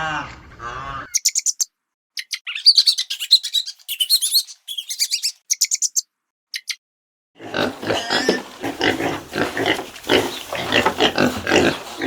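A run of animal calls: a pitched call in the first second, then rapid high chirping for about five seconds. After a short silence, dense rough grunting and squealing fills the rest.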